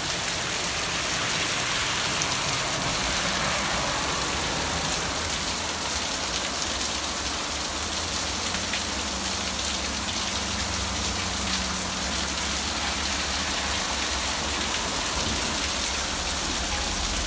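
A hailstorm: rain mixed with hail pelting down steadily on the ground, the cars and the carport roof, an even, unbroken hiss.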